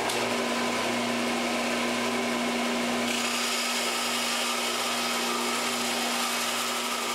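Belt sander running steadily, a constant motor hum under a loud hiss; about three seconds in the hiss turns brighter and louder in the high end.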